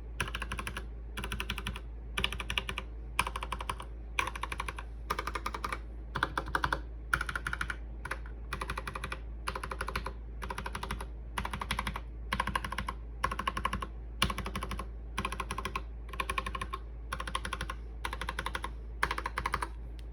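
Mechanical keyboard with Kailh Box Black linear switches being typed on in short, fast bursts of keystrokes about once a second, with brief pauses between bursts. A steady low hum runs underneath.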